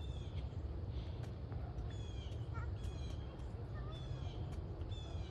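Songbirds calling outdoors: short high falling chirps repeated about once a second, a few lower chirps between them, over a steady low rumble.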